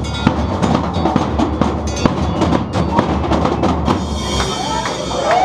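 Street percussion band drumming a fast, dense rhythm, with deep bass drums under sharp, quick strokes. The drumming thins out about four seconds in.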